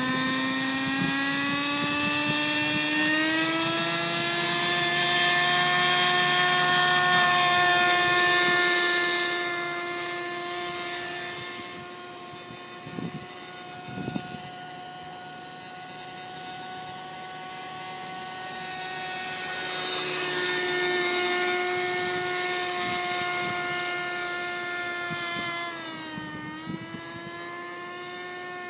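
RC model helicopter's rotor whine, rising in pitch over the first few seconds as it spools up and lifts off, then holding a steady pitch in flight. It fades as the helicopter flies off, grows louder again around twenty seconds in, and dips briefly in pitch near the end.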